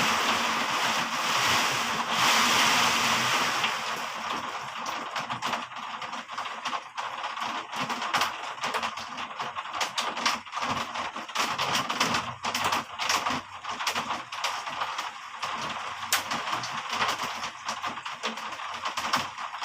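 Heavy rain: a dense, even hiss of rain for the first few seconds, then thinning to a lighter patter with many separate, irregular drips and splashes.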